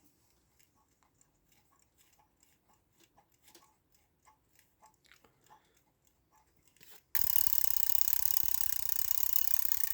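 Faint light clicks of small parts being handled, then about seven seconds in a mechanical alarm clock's alarm goes off: the hammer rattles rapidly against the bell in a loud continuous ring that stops abruptly after about three seconds.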